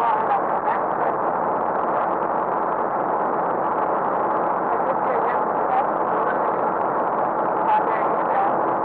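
Steady vehicle running noise with no breaks, with faint brief voice-like sounds over it.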